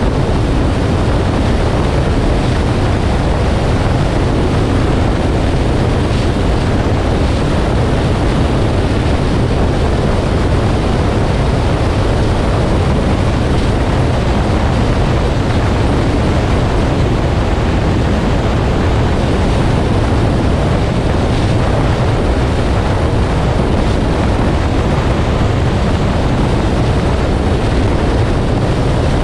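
Steady road and wind noise of a 2018 Nissan Armada driving at speed, a constant low rumble with hiss above it and no change throughout.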